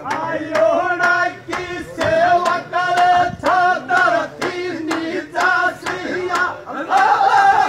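A group of men singing a Rajasthani dhamal folk song together, with a chang (large frame drum) struck in a steady beat under the voices.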